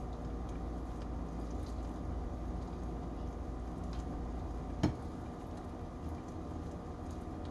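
Steady low hum with one sharp knock about five seconds in; just after the knock the deepest part of the hum drops away.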